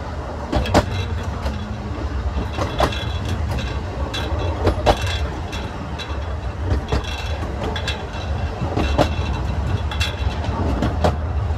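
Narrow-gauge railway coach running along the track: a steady low rumble of wheels on rail, with a sharp clank about every two seconds as the wheels cross rail joints.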